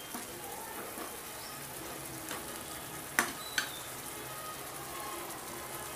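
Tomato masala gravy sizzling as it fries in a pan, stirred with a metal ladle. Two sharp clinks of the ladle against the pan come a little after the middle, about half a second apart.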